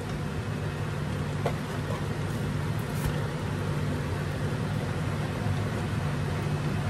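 Kitchen range hood exhaust fan running with a steady low hum.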